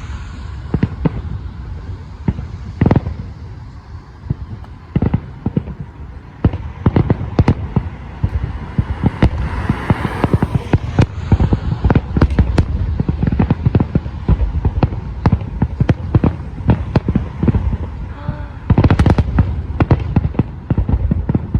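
Aerial fireworks bursting in quick succession, deep booms mixed with sharp cracks. Spaced out at first, then a fast barrage that is densest near the end.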